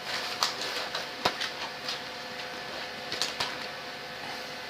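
Scattered sharp clicks and light knocks of small electronic parts and their kit being handled while searching for an inductor, the loudest click about a second in.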